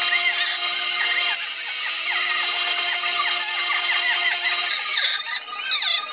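Handheld rotary tool cutting into a clamped wood handle blank with a steady high-speed whine, which stops near the end.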